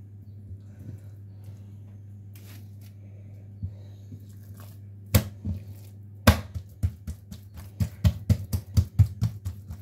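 Hands patting and slapping a round of yeast dough flat on a tiled counter: a couple of sharp slaps about five seconds in, then a quick run of slaps, about three to four a second. A steady low hum underneath.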